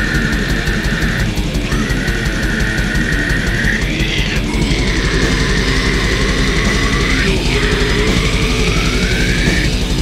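Grindcore music: fast, relentless drumming under distorted guitar, with a high, sustained screech held in long phrases that break off and slide in pitch every few seconds.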